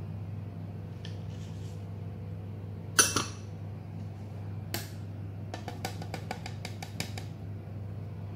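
Spoon clinking against a glass bowl and the mixer jar while milk powder is spooned in: one sharp clink about three seconds in, another near five seconds, then a quick run of about ten light taps, over a steady low hum.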